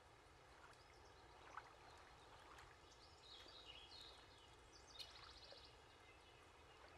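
Near silence: faint outdoor ambience with a few faint bird chirps and a couple of light clicks.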